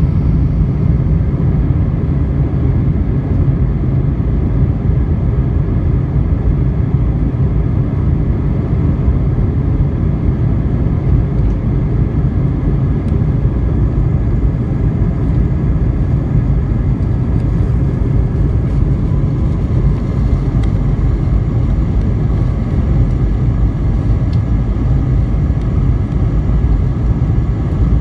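Jet airliner cabin noise while taxiing: a steady low rumble from the engines at taxi power, with a faint steady whine above it, heard from inside the cabin.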